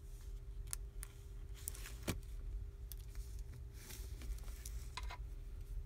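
Small plastic clicks and scrapes of a Samsung Galaxy S4's opened frame and internal cable being handled and pried at by hand, the sharpest click about two seconds in and a short scrape near four seconds. A steady low hum runs underneath.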